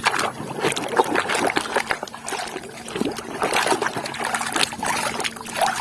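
Water splashing and trickling as a toy is washed by hand, with irregular small splashes and drips throughout.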